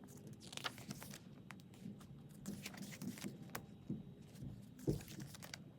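Pages of a photo book being turned and handled: scattered soft paper rustles and light taps, with one louder knock near the end.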